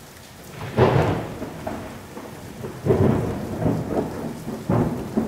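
Thunderstorm: steady rain with rolling thunder, the loudest rumble about a second in and further rolls around three and five seconds.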